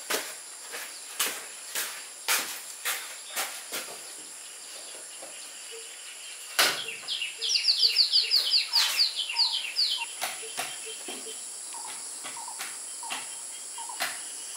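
Crickets or similar insects keep up a steady high buzz. Over it come sharp knocks about twice a second for the first few seconds, then scattered ones. Around the middle a bird gives a quick trill of falling chirps.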